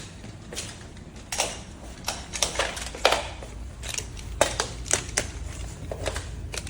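Plastic magnetic tiles clicking and clacking together as they are handled and snapped into place, a dozen or so irregular clicks.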